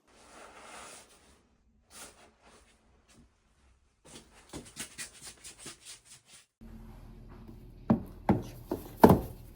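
Handling noises: a brief rustle, a few clicks, then a quick run of light taps. About two-thirds of the way in a steady low hum comes on, and several sharp knocks follow near the end.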